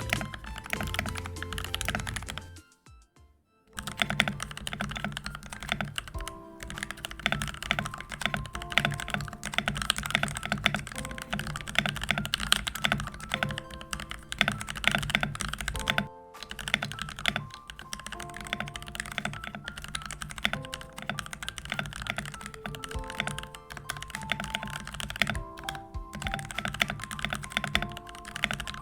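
Fast, continuous typing on a mechanical keyboard with POM Jelly keycaps on NK Silk Black linear switches, over background music. The typing breaks off briefly about three seconds in and again near sixteen seconds.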